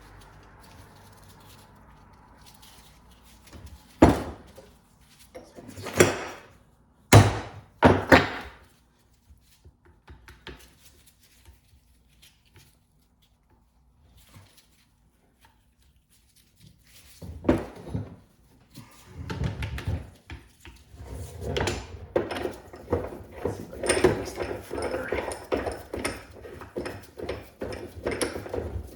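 Hand-tool work on a driveshaft U-joint: several sharp metal knocks spaced a second or two apart, a lull, then a long stretch of rapid clicking and rattling as parts are worked loose from the yoke.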